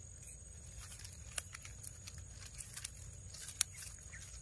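Dry palm fronds and leaf litter rustling and crackling faintly as a baby monkey crawls through them, with a few sharp snaps, the loudest about a second and a half in and again near three and a half seconds. A faint steady high-pitched tone runs underneath.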